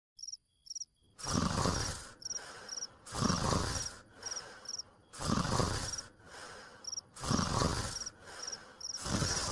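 Cartoon snoring: a loud snore about every two seconds, each followed by a softer breath out. Crickets chirp in short high pulses throughout, alone for the first second.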